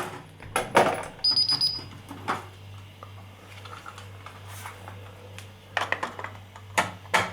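Scattered small plastic clicks and taps from handling alarm-system hardware, with one short, high-pitched electronic beep about a second in, over a faint steady low hum.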